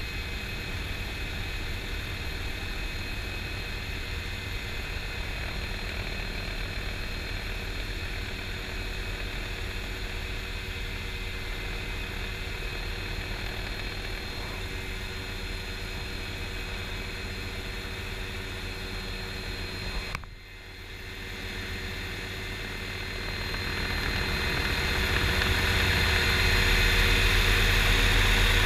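Small rescue helicopter running on the ground with its rotor turning steadily. After a brief drop about two-thirds of the way through, the sound grows louder as the helicopter lifts off.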